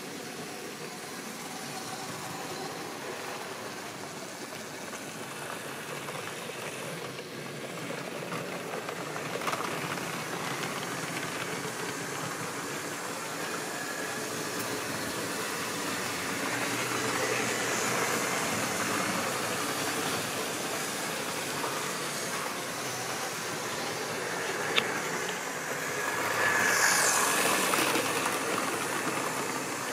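Model railway train running on the track: a steady electric-motor whirr and wheel noise that grows louder a few seconds before the end as the train passes close. A single sharp click just before it passes.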